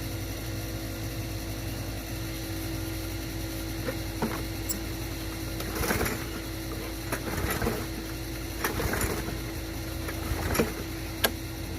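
Several pulls on the recoil starter of a Briggs & Stratton 190cc lawn mower engine, cranking it over without it firing or catching.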